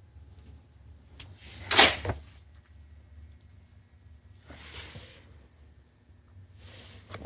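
Plastic socket-set case and its contents being handled: four short rubbing, scraping sounds, the loudest about two seconds in.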